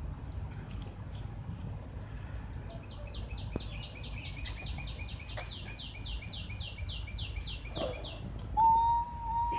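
A songbird singing a long, fast trill of downward-sliding chirps, about five a second, for several seconds. Near the end a steady whistling tone starts and is the loudest sound, over a low background rumble.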